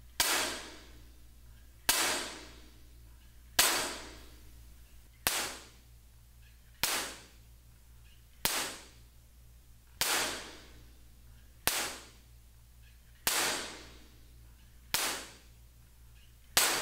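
Sharp clap-like impacts from two handheld objects, repeated eleven times at about one every 1.6 seconds, each followed by the room's reverberation dying away. This is a test sound that shows how the room rings: first with bare flat walls, later with absorber and diffuser panels in place.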